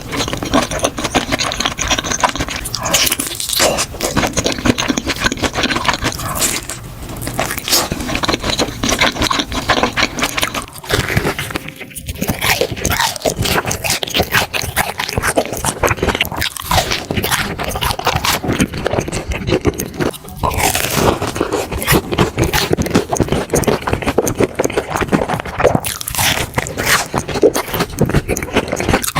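Close-miked eating: crunchy food being bitten and chewed, full of crackling and scraping. It comes as a series of short stretches, with brief breaks about a third and two thirds of the way through.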